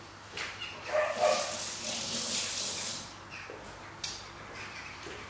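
Kitchen tap running for about two seconds as hands are wetted to keep the sushi rice from sticking, with a short pitched sound just before it starts.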